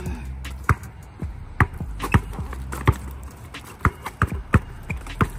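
A basketball being dribbled on a hard court: about eight sharp, irregularly spaced bounces, a few of them in quick succession.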